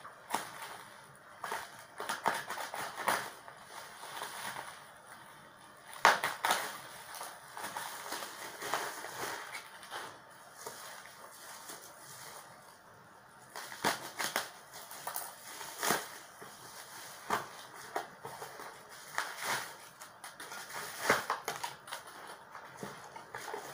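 Paper packaging crinkling and rustling as it is handled and unwrapped, in irregular crackles with several sharper crunches.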